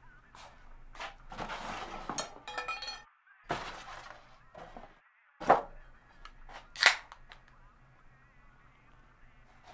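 A plastic cooler's lid is lifted and a can is pulled from inside with some clattering. Then come a sharp knock and, a little over a second later, a bright sharp crack of a drink can's tab being popped open.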